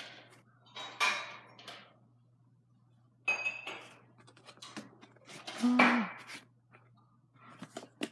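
Objects being handled and set down: short bursts of clattering and rustling, three or four times, the loudest about six seconds in.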